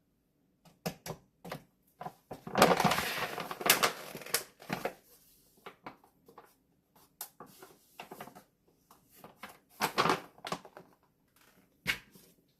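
Rustling and crinkling as a puffy coat is handled, with scattered clicks and knocks. The loudest rustle comes about two to five seconds in, and another burst comes around ten seconds.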